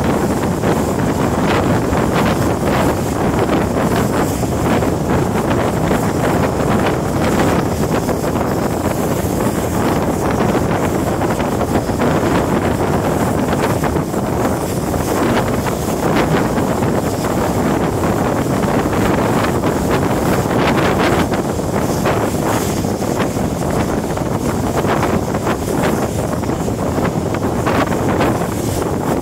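Wind buffeting the microphone on a moving train, over the train's running noise: a steady loud rush with scattered short knocks.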